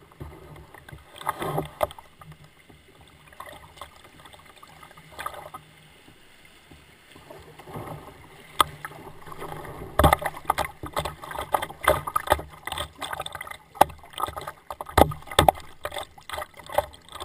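Kayak paddle strokes splashing and water slapping against the plastic hull. About ten seconds in, the splashes become frequent and sharp as the kayak runs through choppy water.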